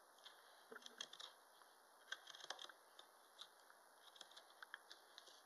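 Faint, crisp ticks and scrapes of a Mora 106 straight carving knife paring thin slivers off the rim of a wooden spoon bowl, coming in small irregular clusters about a second apart.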